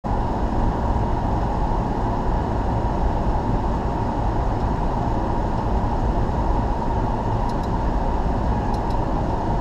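Steady flight-deck noise of a Bombardier Global Express business jet on final approach: a constant airflow and engine noise. Two faint pairs of short ticks come near the end.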